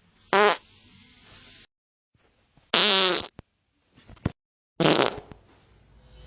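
Three separate farts cut one after another with silent gaps between them, each a buzzing blast with a wavering pitch; the middle one is the longest, about half a second, and a couple of faint short sputters come just before the last.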